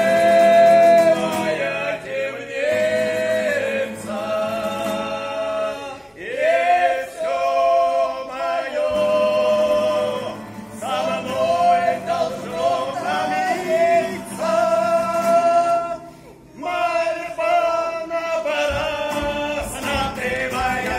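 A group of men singing a song together to an acoustic guitar, in phrases of a few seconds with held notes and short breaks between them.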